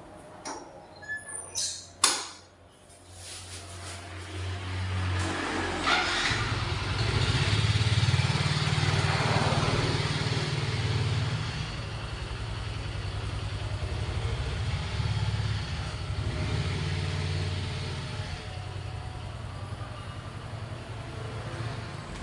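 A few sharp clicks or knocks, then a motor vehicle engine that starts up about three seconds in, picks up and keeps running steadily with a low drone.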